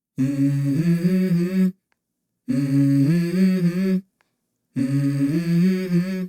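A single voice humming a short melody without words, in three phrases of about a second and a half each with silent gaps between them.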